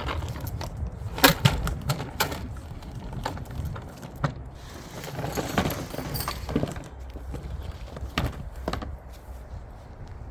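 Small toy vacuum cleaners (micro Henry hoovers) being picked up and handled: irregular knocks and clatters, the loudest a little over a second in.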